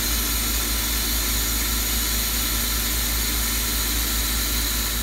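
Steady, unchanging hiss with a low rumble underneath.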